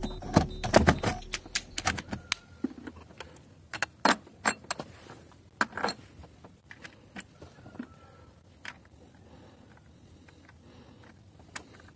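Clattering hard-plastic clicks and knocks as a car battery's plastic cover and the battery in its tray are handled. The knocks come thick in the first few seconds, then thin out to scattered clicks.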